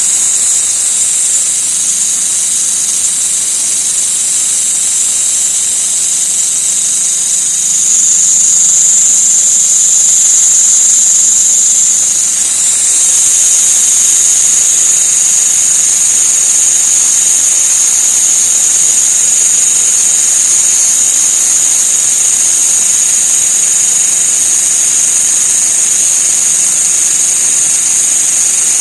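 An insect's continuous, loud, high-pitched shrill drone, unbroken throughout. It shifts slightly in pitch and grows a little louder about eight seconds in, with a brief dip around twelve seconds.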